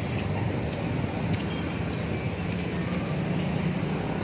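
Steady street traffic noise, with a motor vehicle engine running close by.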